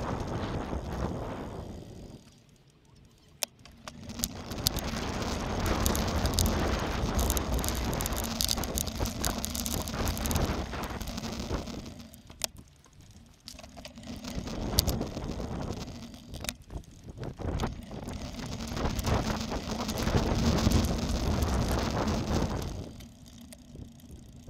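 A bicycle ridden along paved paths, heard from the bike's own camera: tyre rumble, rattling with sharp clicks, and wind on the microphone. The noise drops away for a second or two several times as the bike slows.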